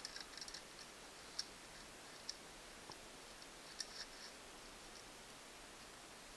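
Faint, scattered light clicks of a saw chain's metal links being handled while it is fitted onto the chainsaw bar, over a low steady hiss.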